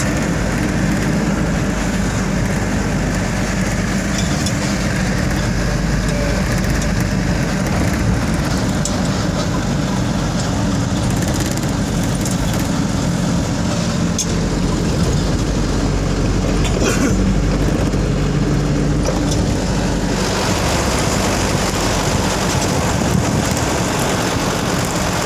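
Steady road and engine noise inside a moving car's cabin, with the tyre hiss growing louder about five seconds before the end.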